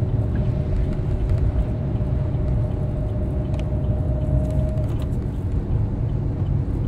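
Car driving on a wet road, heard from inside the cabin: a steady low rumble of engine and tyres, with a faint steady whine that stops about five seconds in.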